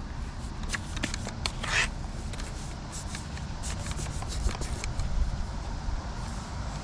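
Mason's trowel scraping and rubbing mortar on brickwork in short, irregular strokes, over a steady low rumble.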